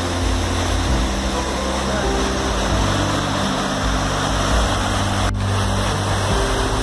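Rushing white water of a rocky river cascade, a steady dense rush, with low steady tones underneath that change pitch a few times.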